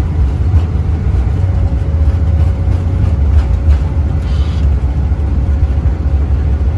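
A Boeing 787 Dreamliner rolling down the runway in its landing rollout, heard inside the flight deck: a loud, steady deep rumble with a few light bumps. A faint thin steady tone joins about a second and a half in.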